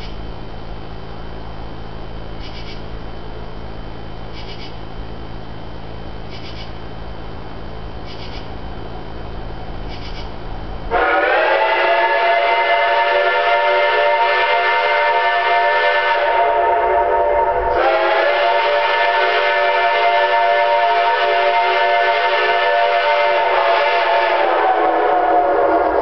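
Geared Shay steam locomotive's whistle blowing two long blasts for a grade crossing, starting about 11 seconds in after a low steady rumble. The second blast drops slightly in pitch near the end.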